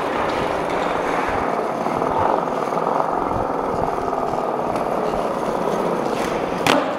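Skateboard wheels rolling on a smooth concrete floor, a steady rumble, with a single sharp clack near the end.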